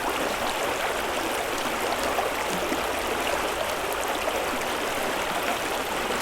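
Water running steadily, an even rushing sound flecked with small splashes and gurgles.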